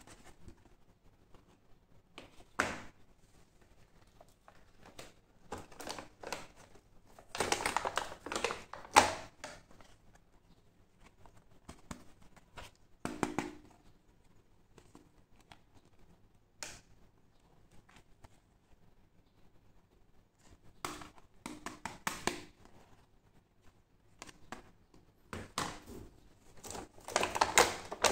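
Hard plastic toy pieces handled and set down on a thin clear plastic blister tray: scattered clicks, knocks and plastic crinkling in short bursts with quiet gaps, the busiest about eight seconds in and near the end.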